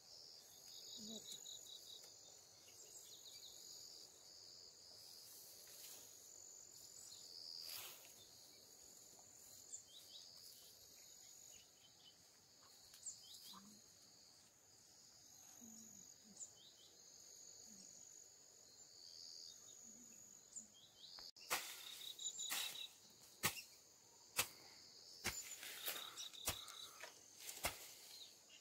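Steady high-pitched drone of insects. About two-thirds of the way in, a run of scratchy rustles and sharp clicks starts as dry pine-needle bedding is scraped and gathered.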